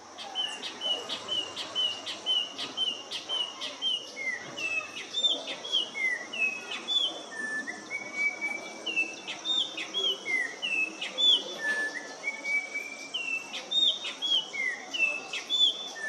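Yellow-backed oriole (Icterus chrysater) singing. It opens with a run of short clear whistles at about three a second, then moves into varied slurred whistles that rise and fall, with a couple of longer held notes.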